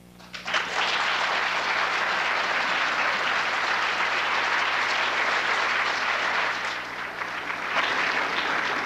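Audience applauding, starting about half a second in and continuing steadily, easing briefly near the end before picking up again.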